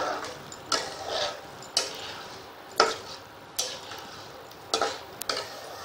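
Flat spatula stirring thick carrot halwa in a metal pan, scraping and knocking against the pan about once a second, with a faint sizzle between strokes.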